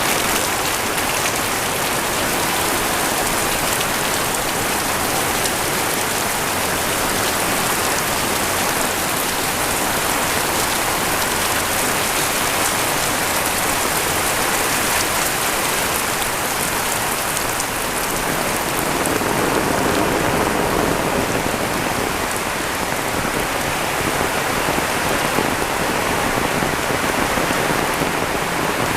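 Heavy rain pouring down steadily, a dense hiss with the patter of drops striking surfaces.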